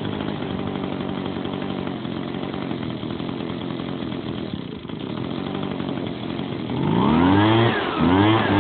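A two-stroke leaf blower engine idles steadily, then is revved up about seven seconds in and again just before the end. It is running with its broken primer bulb temporarily patched with a piece of plastic.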